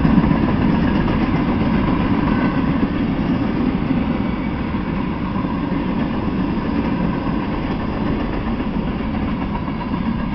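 Freight train cars (covered hoppers and tank cars) rolling past, a steady rumble of steel wheels on the rails that eases slightly toward the end.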